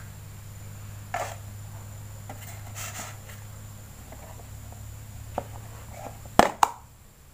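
Plastic food tub being handled, rustling, then two sharp snapping clicks close together near the end as its snap-on lid is pulled open. A steady low hum sits underneath.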